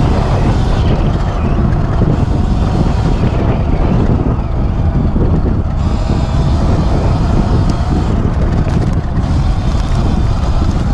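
Sur Ron X electric dirt bike ridden along a dirt singletrack, heard from a helmet camera: a loud, steady rumble of wind and tyre noise with no engine note.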